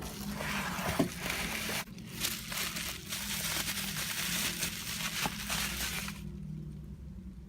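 Plastic packaging crinkling as it is handled and unwrapped, with a few sharper crackles, stopping about six seconds in.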